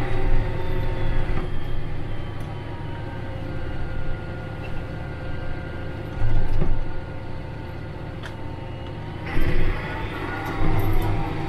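Engine of a tracked John Deere compact tractor running steadily as it moves over snow. Its tracks and running gear give a few sharp knocks, and the sound swells twice for a second or so.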